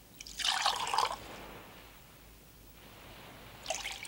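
Rum splashing as it is poured from a glass bottle into a mug: a short pour lasting about a second, then a second brief liquid splash near the end.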